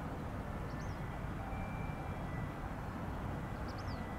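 Steady low outdoor rumble, with two short high chirps, one about a second in and one near the end.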